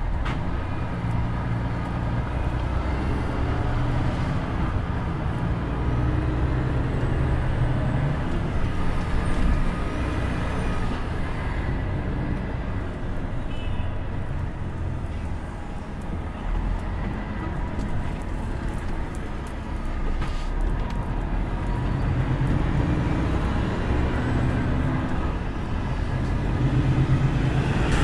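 Volvo FH500 truck's 13-litre inline-six diesel running under way, a steady low drone inside the cab that swells and eases now and then, with road noise.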